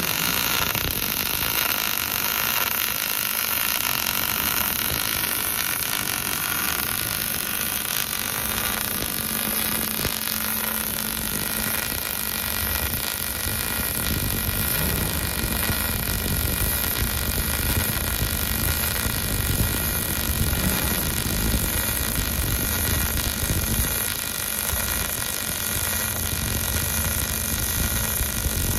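Robotic arc welding torch running a continuous arc along a steel beam seam: a steady, unbroken hiss with faint constant tones underneath.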